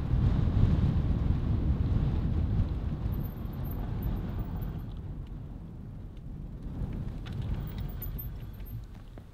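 Wind buffeting the microphone during a bike ride, a low rumble that eases off about halfway through.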